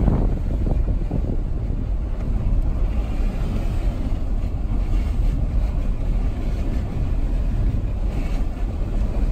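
Car driving slowly along a muddy dirt road: a steady low rumble of engine and tyres.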